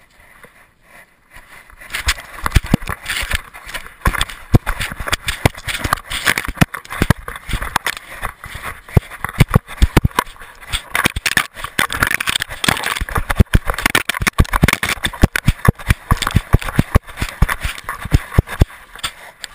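Collar-mounted camera on a running dog, knocking and rattling with every stride, mixed with paws crunching over gravel and snow. The rapid clatter starts about two seconds in and stops shortly before the end.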